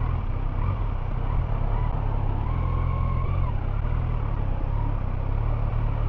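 Motorcycle engine running steadily while riding through city traffic.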